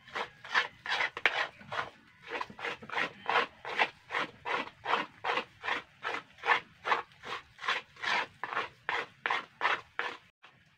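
Metal spoon scraping against a metal wok in quick repeated strokes, about three a second, as thick coconut-sap syrup is stirred. The sap has cooked down to a stiff paste at the stage just before it turns to sugar. The strokes stop just before the end.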